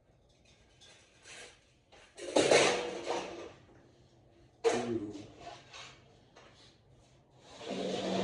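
Two bursts of scraping and knocking, about two seconds in and again near five seconds, as something is handled or slid. Another scrape starts near the end.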